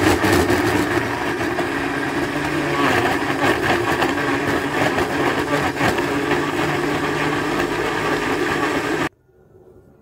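Baltra electric mixer-grinder running steadily, blending whole tomatoes and garlic cloves into a paste. The motor cuts off suddenly about nine seconds in.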